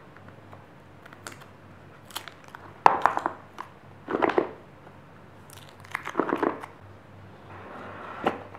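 Cardboard smartphone box being unsealed and handled: the seal tearing, with crinkling and cardboard rubbing and sliding against cardboard. The sound comes in three short bursts, the first about three seconds in, with small clicks and taps between them.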